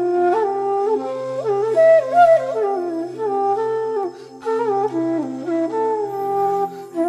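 Instrumental background music: a flute melody of held and sliding notes over a low steady drone.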